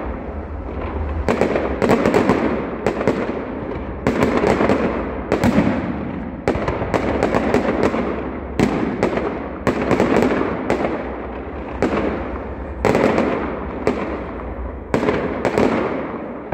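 Fireworks display: a rapid series of aerial shell bursts going off, roughly one or two bangs a second, each followed by a fading tail.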